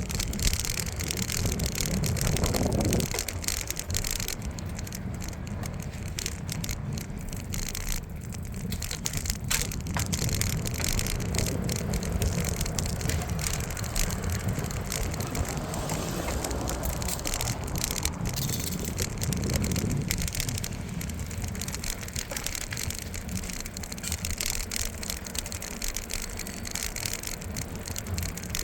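Bicycle being ridden: a steady rattle and crackle from the bike, with wind rumbling on the microphone.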